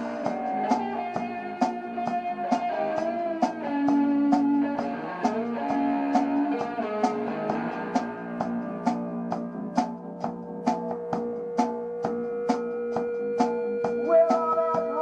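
A rock band plays an instrumental passage: guitar over a steady drum beat, with sharp cymbal or snare hits two to three times a second. About eight seconds in, one note is held under the playing.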